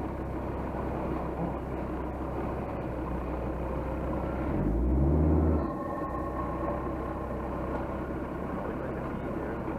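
Off-road 4x4 engine running steadily, with one brief rev rising in pitch about halfway through. It is the loudest moment, and is followed by a faint steady whine.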